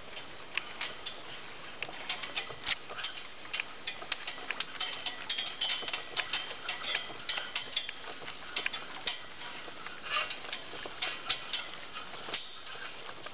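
Rapid, irregular clicking and ticking, several clicks a second, from the rope and fittings of a hand-hauled rope-ferry raft as it is pulled across the stream.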